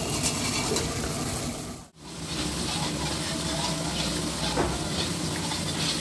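Curry gravy sizzling and bubbling in a black iron wok while a long metal ladle stirs it and scrapes the pan. The sound drops out sharply for a moment about two seconds in.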